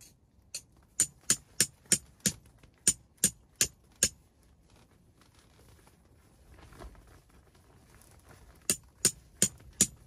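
Tent pegs being hammered into the ground to anchor the tent's guylines: a run of about ten sharp strikes, about three a second, then a pause, then a second run starting near the end.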